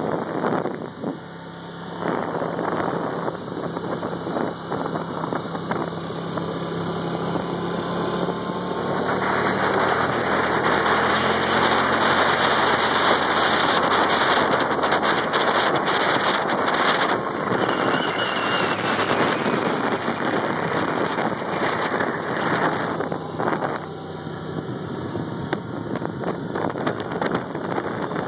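Polaris ATV engine running while riding on a dirt trail, with wind rushing over the microphone. The sound grows louder about a third of the way in and eases off again past the middle.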